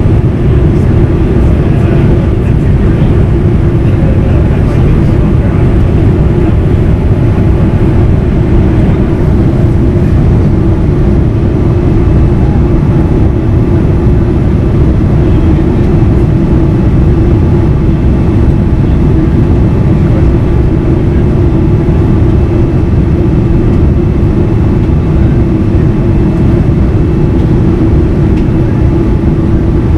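Steady cabin roar of a Boeing 787-9 on its landing approach, heard from a window seat beside the wing and its GE GEnx-1B engine, with a steady low hum running through it.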